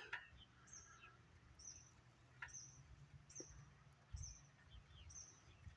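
Faint outdoor quiet with a small bird repeating short, high chirps about once or twice a second, and a couple of soft clicks.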